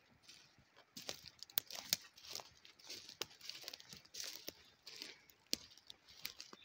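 Footsteps through pine-forest undergrowth of dry needles, twigs and low shrubs, crunching at a steady walking pace, about one and a half steps a second, with a few sharp snaps.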